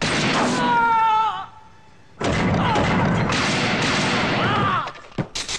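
Film gunfight sound effects: a pistol shot at the start trailing off in a falling whine, then after a short pause a longer stretch of loud gunfire and crashing lasting about three seconds.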